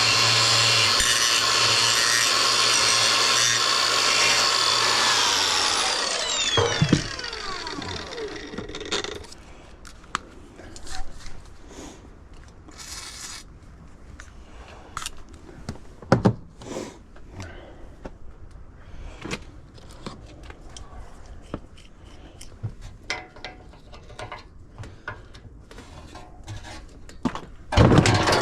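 Handheld power tool running at a steady speed for about six seconds, then spinning down with a falling whine. After that come scattered clicks and knocks of parts and tools being handled.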